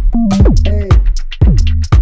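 Electronic funk backing music: a drum-machine beat with a kick about twice a second and hi-hat ticks under a gliding synth bass.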